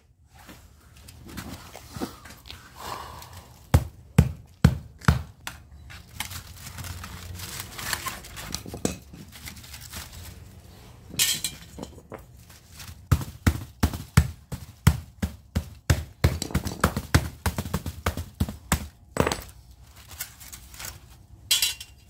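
Crushed aluminium radiator fins crackling and crunching as the copper tubes are worked out of the core by hand, with many sharp metallic clinks and knocks, thickest in the second half.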